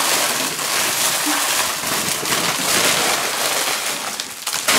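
Loose candy-coated chocolates and plastic-wrapped sweets rattling and crinkling steadily as hands dig and stir through a large pile of candy, with a few sharper clatters near the end.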